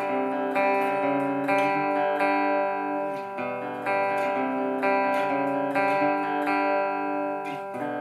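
Clean electric guitar chords played through a ZT Amp Lunchbox (LBG1S) combo amp, a new chord struck about every second, the last one left to ring near the end.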